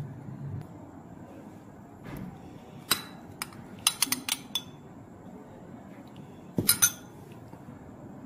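A metal spoon clinking against a bowl as filling is scooped out: a clink about three seconds in, a quick run of clinks around four seconds, and a louder double clink near seven seconds.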